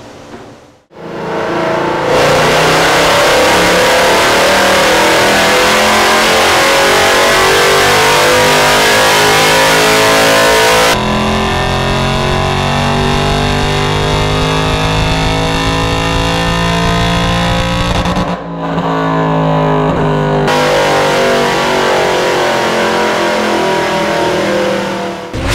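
Mercedes-AMG M156 6.2-litre V8 with IPE headers, running loud under hard acceleration. It comes in about a second in, and its pitch climbs steadily over several seconds at a time, with breaks between the pulls.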